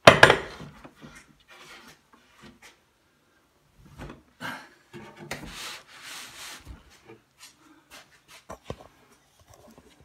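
A wooden cabinet carcass set down on a work table with a loud thump at the start, then shifted and slid into place, wood rubbing and scraping with scattered knocks.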